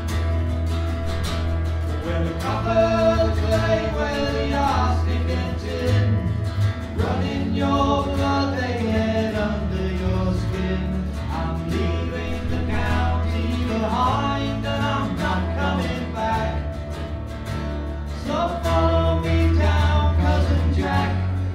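Acoustic folk song: a voice singing over acoustic guitar with a steady bass line.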